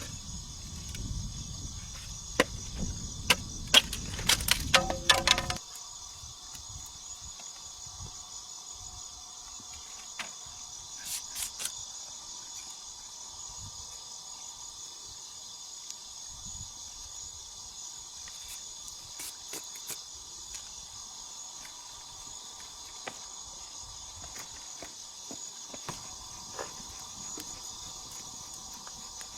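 Steady chorus of forest insects, a continuous high buzz. For the first five seconds there is also low rustling noise with several sharp knocks, which stops abruptly.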